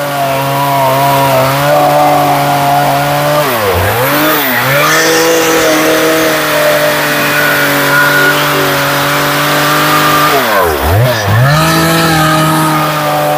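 Stihl chainsaw with a carving bar running at high revs while its tip cuts into the wood of a carving. Its engine pitch dips sharply and recovers twice, about four seconds and eleven seconds in.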